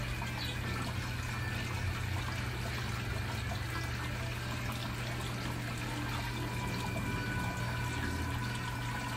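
Steady trickling, running-water sound with a constant low hum beneath it.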